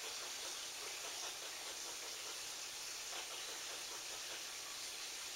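Steady background hiss with a few faint, short squirrel calls in it, the clearest about three seconds in.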